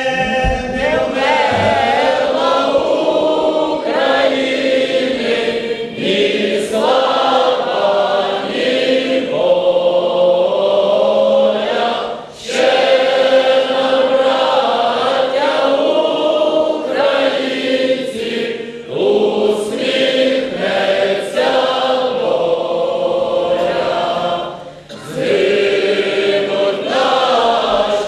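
Many voices singing together in long, held phrases, with brief pauses for breath about 12 and 25 seconds in.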